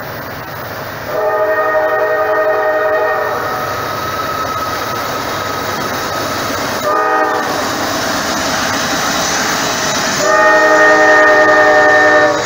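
Fouled Nathan K5LA24 five-chime horn on a Norfolk Southern freight locomotive: a long blast, a short blast, then another long, louder blast near the end, with the multi-note chord sounding out of tune. The train rumbles underneath as it rolls past.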